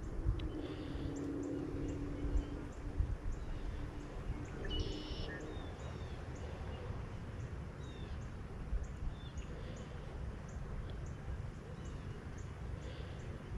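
Open-air ambience: a low wind rumble on the microphone with scattered bird calls, the clearest a short burst of chirping about five seconds in, and a faint high tick repeating about every two-thirds of a second.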